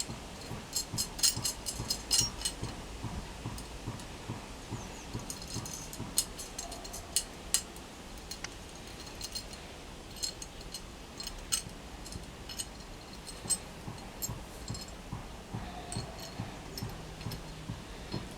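Irregular sharp metallic clicks and clinks of hand tools working on metal, bunched in quick clusters near the start and again around a third of the way in, then scattered, over a faint low hum.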